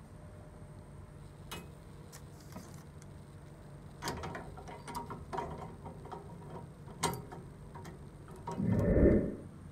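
Metal clicks and clanks as the round steel door of a pressure-chamber bubble remover is swung shut, then a louder scraping rumble about a second long near the end as its screw locking handle is turned tight.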